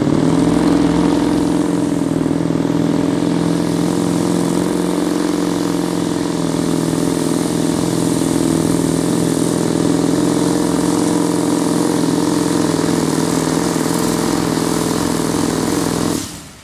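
Limited Modified pulling tractor's engine running at high, steady revs at full throttle during a pull, after a quick rise in revs at the start. The sound cuts off abruptly near the end.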